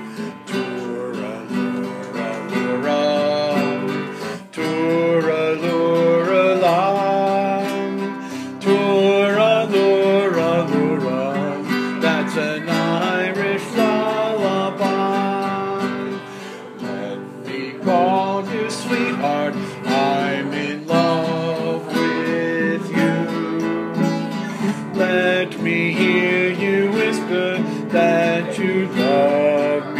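Classical guitar played as an instrumental, strummed chords under a melody line with no singing.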